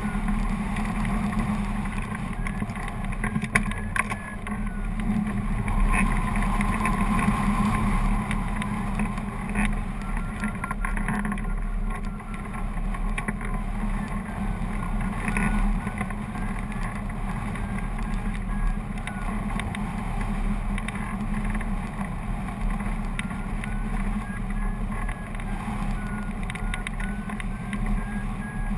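Steady wind rushing over the microphone of a camera mounted on a hang glider in flight. A flight variometer beeps faintly through it in several stretches, its beeps gliding up and down in pitch with the rate of climb.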